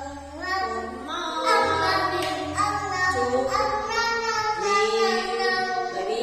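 A young child singing a song over a musical backing track with steady bass notes.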